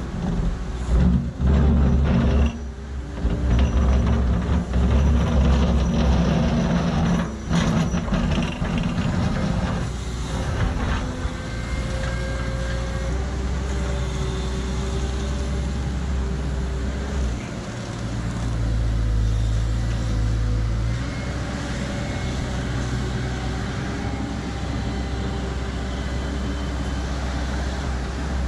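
Mini excavator's diesel engine running under load while its bucket digs a trench in clay. The engine is loudest and most uneven for the first ten seconds or so, then runs more steadily.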